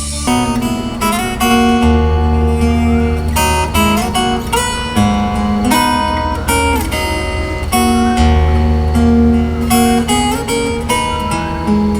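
Guitar-led music playing through a DIY 2.1 Bluetooth speaker box with a 6.5-inch HK subwoofer, 3-inch AURA midrange and 2-inch HK tweeter: plucked and strummed guitar over deep held bass notes that come in about two seconds in and again about eight seconds in.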